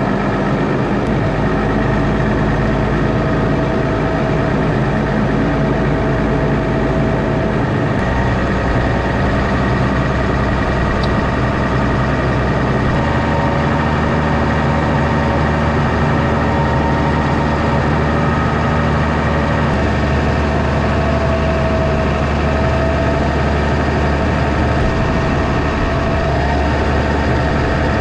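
Diesel loader tractor engine running steadily, warming up just after a cold-morning start; its low note shifts a few times.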